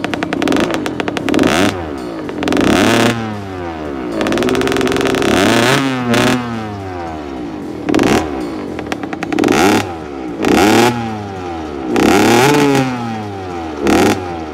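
Cobra 50cc two-stroke motocross bike engine heard at the exhaust, running at a fast idle and then revved in about seven short throttle blips, its pitch rising and falling with each one. The longest rev comes about four seconds in.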